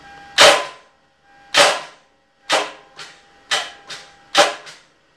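Starter on a seized 1999 Toyota Corolla 1.8-litre four-cylinder engine, engaged over and over: five loud clacks about a second apart, some followed by a fainter one, with a bit of grinding and metal-on-metal noise. The starter can't turn the engine over, which the owner believes seized when cylinder one threw a rod.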